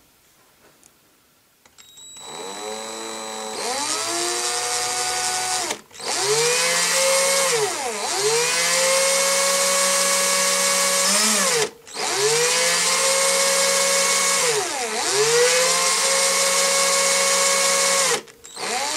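Electric drill with a 1.5 mm bit boring a hole into the soft plastic ankle of an action figure held by hand. The motor whine spins up about two seconds in, slows and picks up again in pitch as the trigger is eased, cuts out and restarts twice, and stops shortly before the end.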